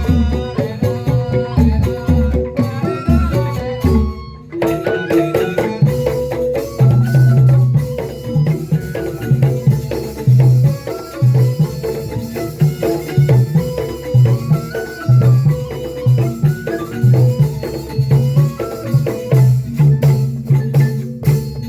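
Traditional music played on drums and pitched percussion: a stepwise melody over a steady pattern of low drum strokes, dipping briefly about four seconds in before going on.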